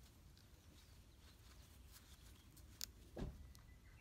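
Near silence with faint, light clicks of a knife working a thin wooden stick. There is a sharp click a little under three seconds in and a soft dull thump just after it.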